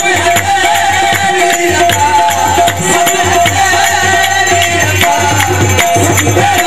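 Loud, steady music: rhythmic drumming with rattling percussion strokes, and a wavering melody line over a held drone tone.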